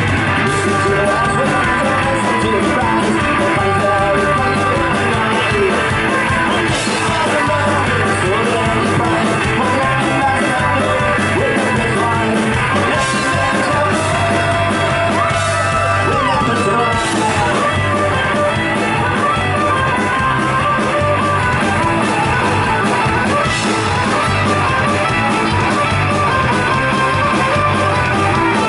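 Folk-punk band playing live: a fiddle melody over guitar, mandolin, bass guitar and drums.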